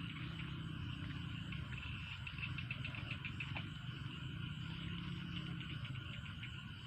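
Night chorus of frogs and insects calling by a river, a dense mix with fast pulsing trills that grow stronger about two seconds in, over a low steady drone.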